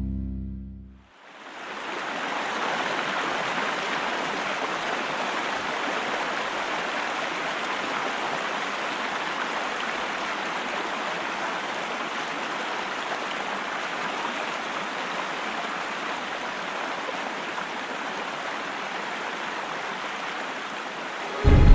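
Steady rushing water, like a big river's current, fading in about a second in and holding evenly; a film's opening soundtrack played over cinema speakers.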